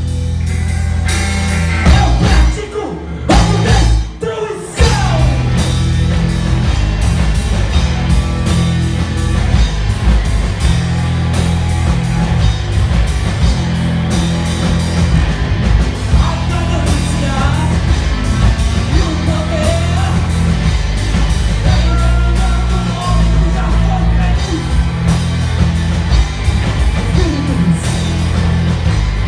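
Rock band playing loud with singing and drums. In the first few seconds there are a few sharp stops and accented hits, then the full band plays on steadily.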